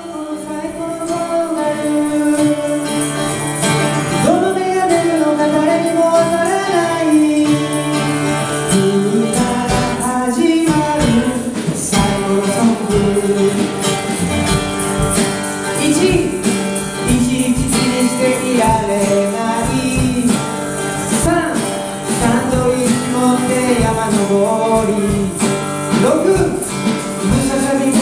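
Music: a song with a singing voice over instruments and percussion.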